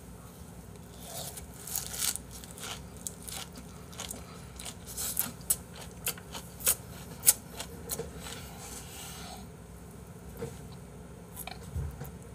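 Close-up chewing of a big leaf-wrapped ssam mouthful of pork and pickled radish: wet chewing with a run of sharp crunches that thin out after about nine seconds.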